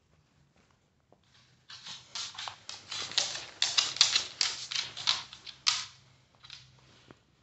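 A hand rubbing briskly through a cat's fur right by the microphone: a dense, rapid scratchy rustle that starts about two seconds in and stops about six seconds in, with a few fainter rustles near the end.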